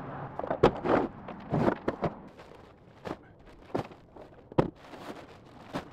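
Full black plastic trash bags crinkling as they are handled and tossed into a pickup truck bed, with several sharp knocks and thumps as they land and as the worker moves about.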